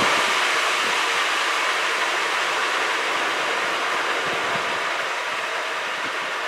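Fairchild J44-R-24 turbojet on a test stand running with a steady rushing noise that slowly fades.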